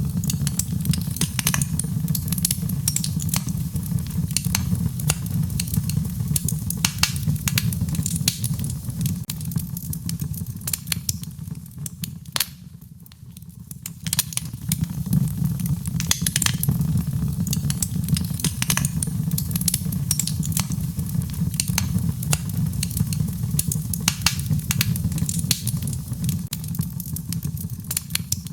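Wood fire crackling, with frequent sharp irregular pops over a steady low rumble of the flames. It briefly goes quieter, with fewer pops, a little before halfway through.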